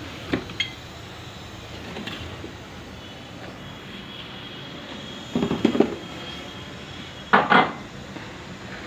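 Phone microphone handling noise as the camera is moved about: a few short rustling bumps, two in quick succession just after the start, then double bursts about halfway through and near the end, over a steady background rumble.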